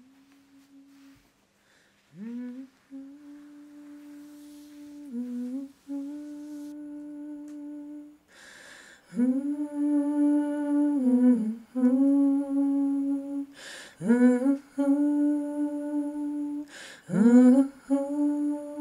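A voice humming long, wordless held notes that stay close to one pitch, each sliding up into the note at its start. It is soft at first and louder from about eight seconds in, with a breath drawn before each of the later phrases.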